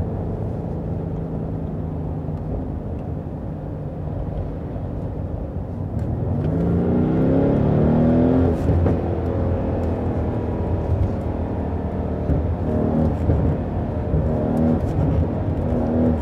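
Mercedes-AMG GLC 63 S's twin-turbo 4.0-litre V8 running steadily, then revving up under acceleration about six seconds in and settling into a louder steady pull. A few short exhaust pops are heard after the rev.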